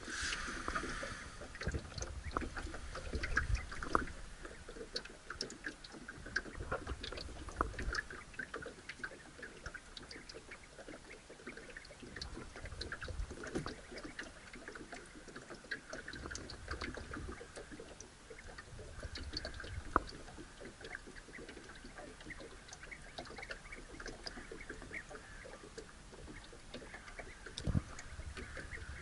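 Water lapping against the hull of a small open boat, with scattered light clicks and knocks throughout.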